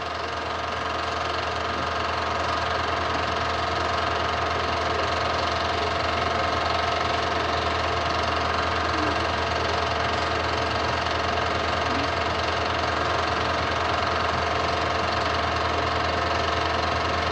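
Home-movie film projector running steadily: a constant motor hum with several steady higher tones, growing slightly louder over the first few seconds.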